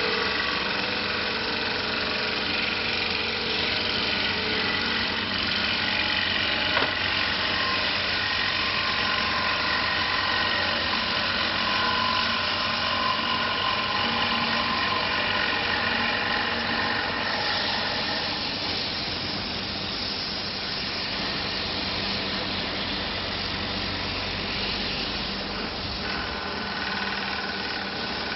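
CNC wood lathe running, spinning a wooden plate blank: a steady motor hum and whine under the hiss of the wood being worked, with one brief sharp click about seven seconds in. From about the middle the hiss changes as the spinning face is worked by hand.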